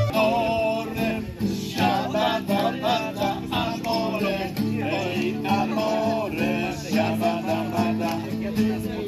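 Acoustic guitar strummed in a steady rhythm while a group of people sings along.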